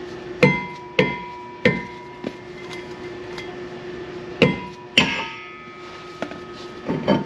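Dead blow hammer striking a stuck brake part on a car's rear wheel hub to knock it loose: about six blows in two groups, the struck metal ringing briefly after each.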